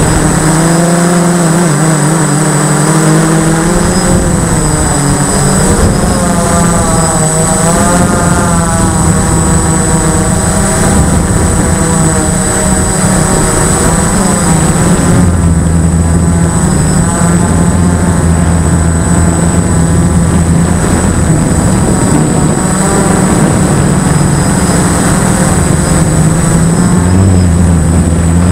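A model aircraft's motor and propeller droning steadily, heard through a camera mounted on the plane. Its pitch rises and falls several times as the throttle changes, over a constant high whine.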